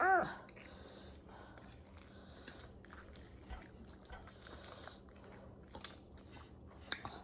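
Close-miked chewing of food, with soft crackly mouth noises and a couple of sharper clicks near the end; a brief vocal sound right at the start.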